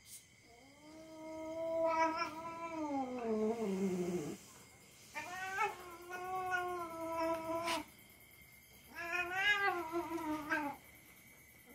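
Domestic cat yowling in three long, drawn-out calls while a young dog pins and mouths it in rough play; the first call slides down in pitch at its end.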